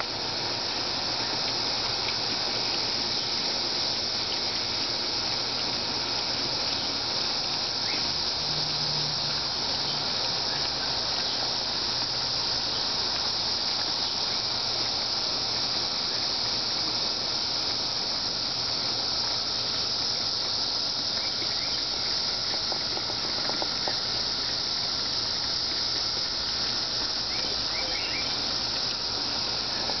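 Cicadas singing in a steady, high-pitched chorus drone that never breaks or changes.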